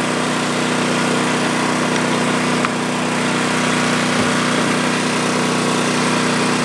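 Powerhouse 11000ES portable generator's engine running at a steady speed.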